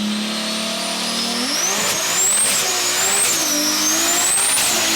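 Drag car launching from a held engine note about a second and a half in, then accelerating hard down the strip, its pitch climbing and dropping back at each of several quick gear changes.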